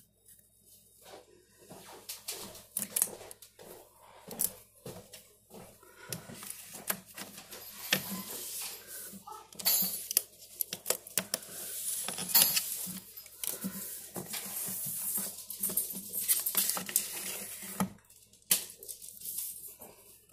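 Self-adhesive vinyl contact paper being handled and worked: irregular crinkling and rubbing with many small clicks and taps. The rubbing is hissiest in the middle and latter half, and it stops near the end.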